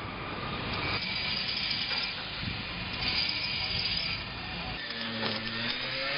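Welding work on a railway carriage: a steady hiss with light crackling, over a low rumble that drops away about five seconds in.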